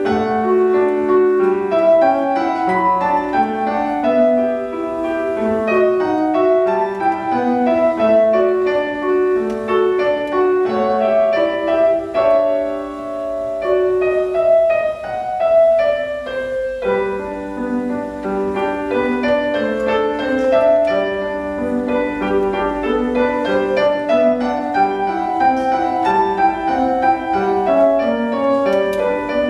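Solo grand piano, a Petrof, played in a quick flowing passage of many short notes, easing off briefly around the middle before a strong new entry.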